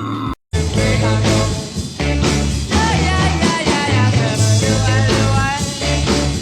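Loud rock-style music with a heavy bass line and a wavering lead. It cuts out briefly about half a second in, then plays on.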